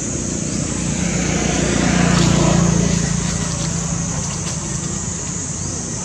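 A motor vehicle passing by: its low engine hum swells to a peak about two and a half seconds in, then fades, over a steady high-pitched drone.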